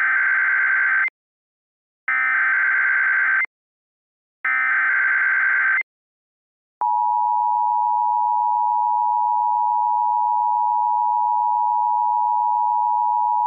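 Emergency Alert System tones. Three identical buzzing data bursts, each about a second and a half long with short gaps between them, form the SAME header. About seven seconds in, the steady two-tone EAS attention signal begins.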